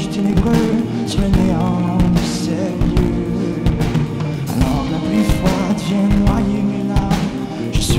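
Rock band playing live: drum kit striking steadily under sustained pitched instruments, in a passage of a melancholy rock song.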